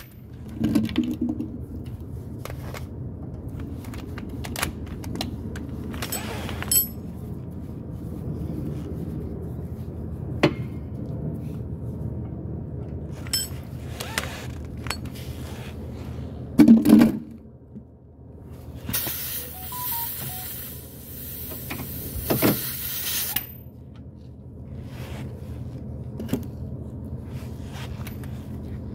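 Steel hand tools and suspension parts on a Club Car golf cart's front spindle clinking, scraping and knocking as parts are worked loose and refitted, with scattered sharp knocks over a steady low background hum. About 19 s in, a hissing noise runs for about four seconds.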